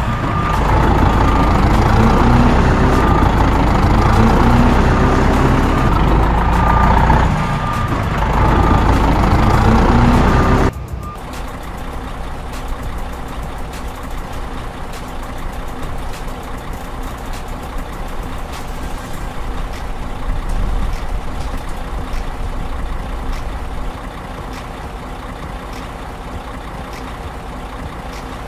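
Heavy trucks running, with a repeating reversing beeper. About ten seconds in, the sound cuts abruptly to a quieter, steady diesel engine idling.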